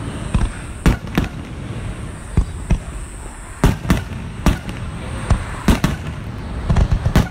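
Aerial firework shells bursting overhead: a dozen or so sharp booms at uneven intervals, some in quick pairs, bunching together near the end.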